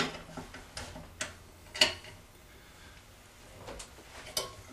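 Scattered sharp metal clicks and clanks, about six at uneven intervals, the loudest at the very start and near the two-second mark, as C-clamps and parts are handled and fitted back onto the rig.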